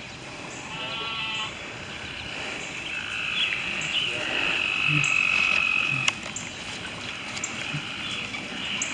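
Frogs calling over a steady high insect trill. The trill grows louder in the middle and drops off sharply about six seconds in, with a short, rapid pulsing call about a second in.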